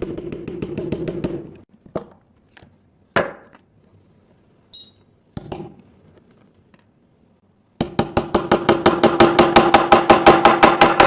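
Rapid, even taps of a hard tool on a phone's glass screen protector, about eight a second, with a ringing tone under them. Two runs of tapping, the first stopping a couple of seconds in and the second starting near the end, with a few single knocks on the glass in between.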